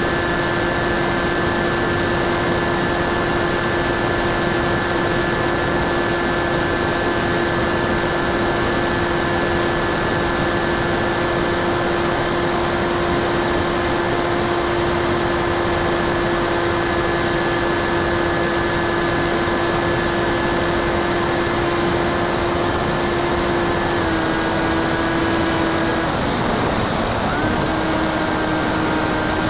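Brushless electric motor and propeller of a Bixler 2 model plane whining steadily, with a dense rush of air, as heard from a camera mounted on the plane. About twenty-four seconds in the pitch steps down a little, then dips lower for a second or so and climbs back up.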